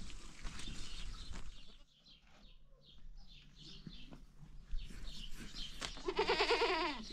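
A goat bleating, one long quavering call near the end.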